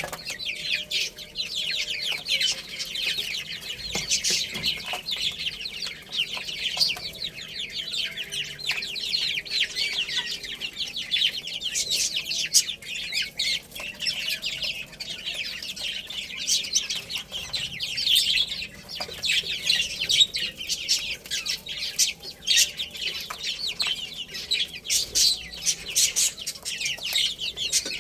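A flock of baby chicks peeping constantly, many short high-pitched chirps overlapping into a continuous chorus.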